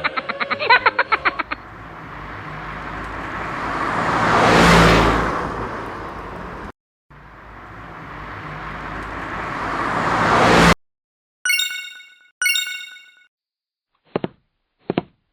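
Video editing sound effects: a rising and falling whoosh, then a second whoosh that builds and cuts off sharply, followed by two bright chime dings and a few short clicks.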